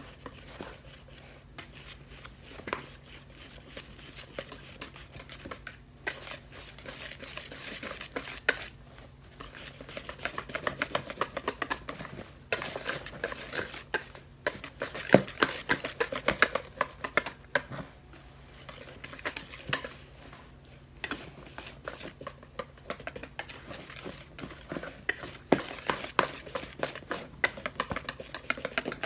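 Hand whisk beating cake batter in a mixing bowl: rapid, irregular clicks and scrapes of the wires against the bowl, louder in stretches and easing off in between.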